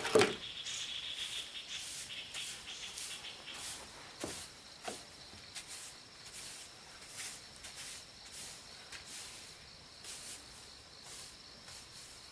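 Insects trilling steadily, with a brighter chirping in the first few seconds, a knock at the very start and light clicks scattered throughout.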